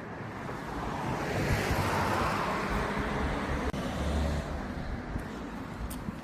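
A car passing by on the road, its tyre and engine noise swelling to a peak about two seconds in and then fading away.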